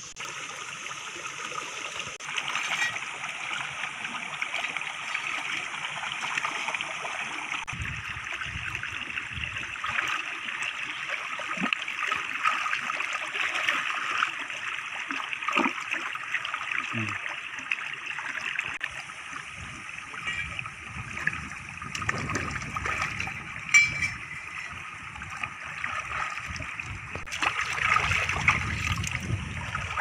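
Shallow stream running and trickling over stones, a steady rush of water, with splashing from hands working in the water in the later part.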